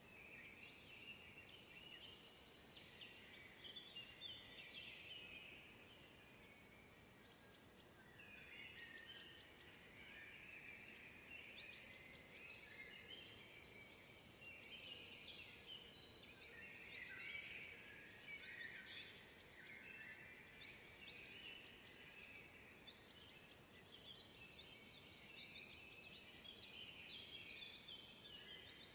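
A chorus of several songbirds in woodland in spring, faint and continuous, with overlapping twittering phrases and a thin high chirp repeating every second or so above them.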